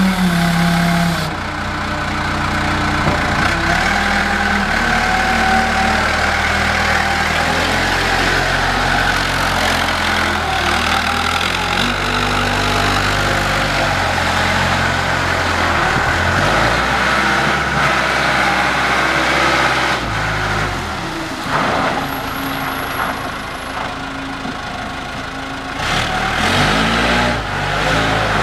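Hyster H155XL forklift engine running while the forklift drives about. The engine speed keeps stepping up and down, and it is loudest in the first second.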